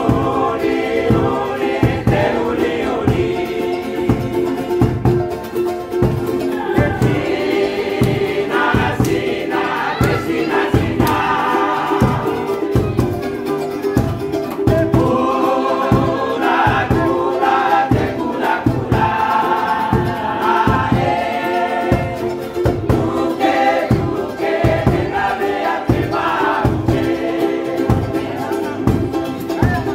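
A group singing together, accompanied by strummed acoustic guitar and ukuleles, over a steady beat of about two strokes a second.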